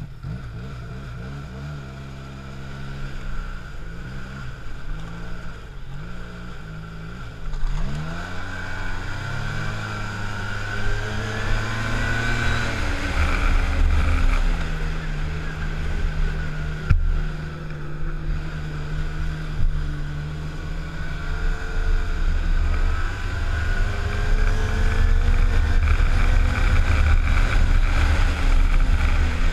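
Arctic Cat snowmobile engine running under way, its pitch rising and falling as the throttle is worked, climbing to higher revs about eight seconds in and getting louder again near the end.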